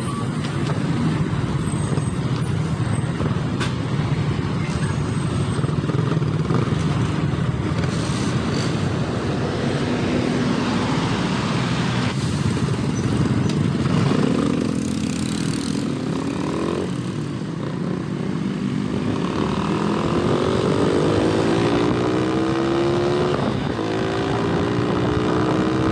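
Motorcycle ride in city traffic: steady wind and road noise on a helmet-mounted phone's microphone. In the second half the engine's pitch rises several times as the bike accelerates.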